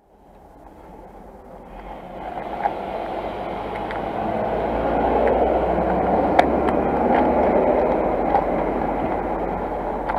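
A train passing, its rushing rumble building over several seconds, with a few sharp clicks on top.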